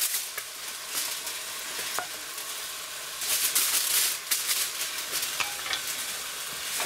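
Beef steaks sizzling in fat in a hot cast-iron roaster, with a wooden spatula scraping and clicking against the pan as the steaks are lifted out. The sizzle grows louder for about a second a little past the middle.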